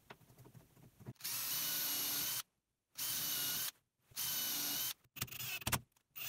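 Cordless drill-driver running in three steady bursts of about a second each with a whining motor, then shorter, uneven bursts near the end, as it drills into a wooden fence board and drives 50 mm wood screws into it.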